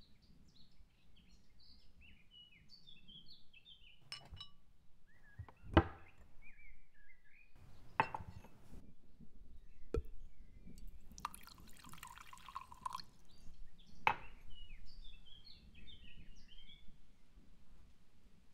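A drink poured from a bottle into a glass tumbler for about two seconds, with several sharp clinks and knocks of the glass and bottle set down on a countertop, the loudest about six seconds in. Birds chirp faintly in the background.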